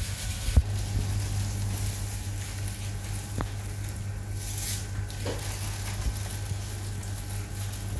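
Steady low electrical hum inside a small shop, with plastic bags and snack packets rustling and a couple of light knocks.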